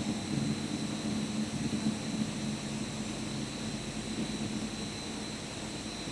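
Rubber extrusion and microwave curing line machinery running steadily: a continuous low drone under a hiss, with thin steady high-pitched whines.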